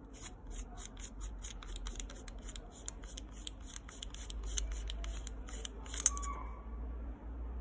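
Small metal clicks from the barrel of an Angénieux Retrofocus Type R11 28mm f/3.5 lens as a threaded section is turned by hand to unscrew it: a rapid run of about five or six clicks a second, ending with a louder click about six seconds in.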